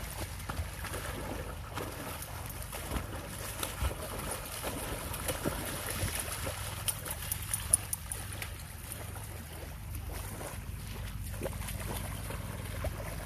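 A German Shepherd wading and splashing through shallow lake water, with crackling splashes, thickest about halfway through, over a steady low rumble.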